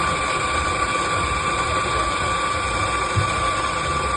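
Electric coffee grinder motor running steadily, a loud whine while grinding beans.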